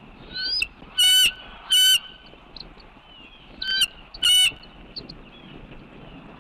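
Loud, harsh bird calls in two pairs, about 1 and 2 seconds in and again near 4 seconds, each call short and preceded by a quicker rising note.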